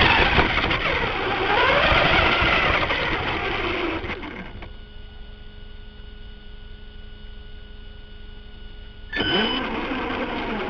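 Radio-controlled car's motor and drivetrain whining, rising and falling in pitch as it drives over grass. The whine stops about four and a half seconds in, leaving only a faint steady electronic whine, and starts up again near the end.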